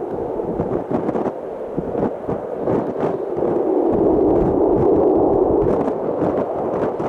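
Low-flying military fighter jet's engine noise growing louder from about four seconds in as the jet approaches along the valley, with wind buffeting the microphone.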